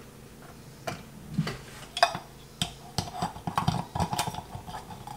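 Scattered light metallic clicks and clinks of a light fixture's hardware being handled at a ceiling box: the metal canopy and mounting screws tapping together. The clicks are sparse at first and come thicker in the second half.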